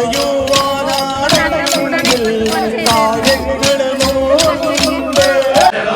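Folk-style song: voices singing over a quick, steady beat of sharp percussive strikes.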